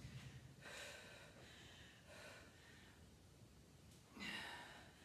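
A woman's hard breathing during a dumbbell workout: a few short, breathy exhales, the strongest near the end.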